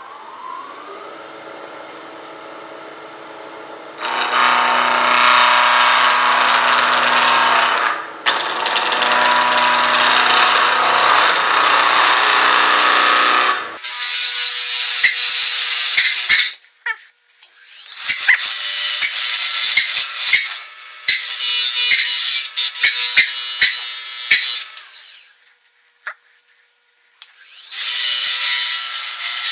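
Wood lathe motor spinning up, then a turning tool cutting a spinning blank of elm burl and cast resin in several long passes, a loud scraping cut with clicks, broken by short pauses.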